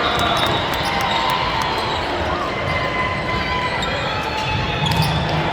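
Sneakers squeaking on a gym court floor during a volleyball rally, with ball thuds and crowd chatter throughout. A short swell of louder low sound comes near the end.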